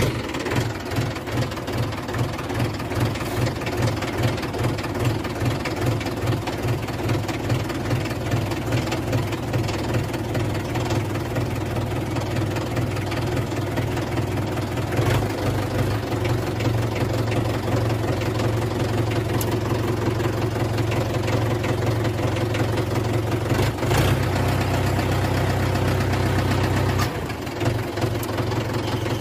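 Tractor engine sound effect idling steadily with a regular chug, with a brief dip and change in tone about 27 seconds in.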